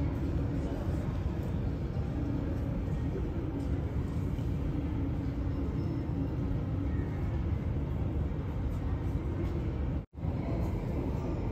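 Steady low jet-engine noise of an airliner taxiing, with a faint hum running through it. The sound cuts out for an instant about ten seconds in.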